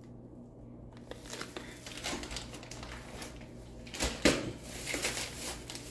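Soft plastic facial-wipe packets crinkling as they are handled, with a few sharp knocks about four seconds in.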